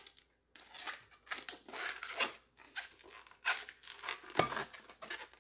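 Latex modelling balloon squeaking and rubbing in short, irregular bursts as it is pinched and twisted by hand.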